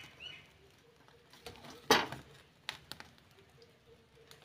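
Faint clicks and knocks of corn cobs being turned and set down on a metal wire grill rack, with one sharper knock about two seconds in.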